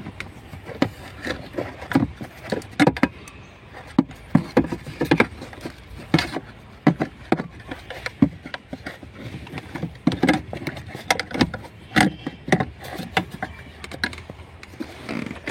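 Scattered, irregular clicks and knocks of a car's engine wiring harness and its plastic connectors being wiggled and handled by hand, a check for a suspected loose contact that would make the engine cut out.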